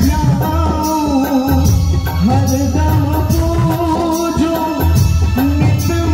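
A man singing a Hindi devotional bhajan in long, gliding phrases, with keyboard and percussion accompaniment.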